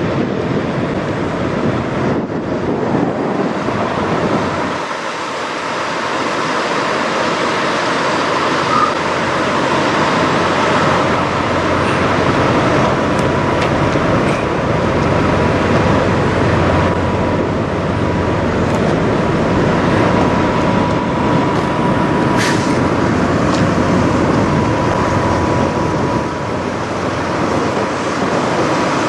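Steady drone of idling diesel semi-trucks, with a thin steady high tone running through the middle stretch.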